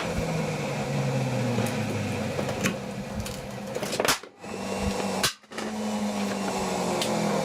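Mains-powered capacitor-charging rig buzzing steadily, then two sharp electrical cracks about a second apart, each cutting the hum out for a moment before it comes back: a bad connection flashing over and blowing.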